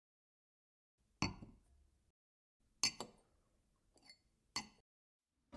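Short sharp clinks of small hard objects, like glass being tapped, four of them about a second apart with a brief ring each; the first two have a quick second tap right after.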